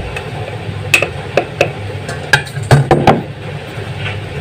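Sharp clinks and knocks of a utensil and a container against a stainless steel mixing bowl as potato starch is poured and scooped in. The loudest cluster comes about three seconds in, over a steady low hum.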